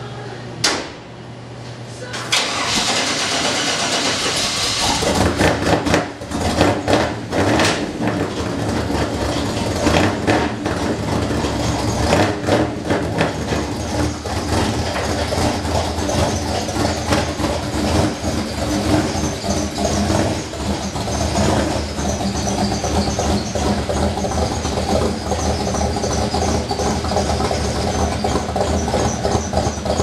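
1964 Chevrolet pickup's engine cranked by the starter for a few seconds, catching about five seconds in. It is blipped a few times, then keeps running steadily.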